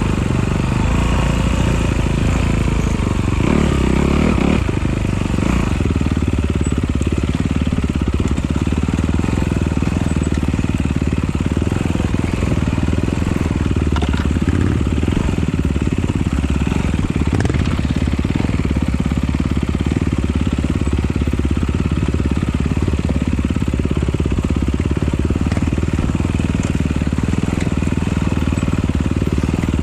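Honda CRF dirt bike engine running on an off-road trail, its pitch swinging up and down a few seconds in, with a couple of short knocks later on.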